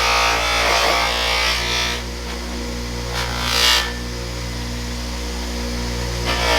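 Background music, thinning out for a few seconds in the middle, with a short swish about three and a half seconds in.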